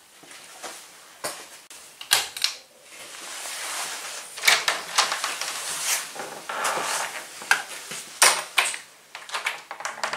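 Irregular knocks, clicks and clatter of a person handling things and moving about a small garage room, ending with a door being shut.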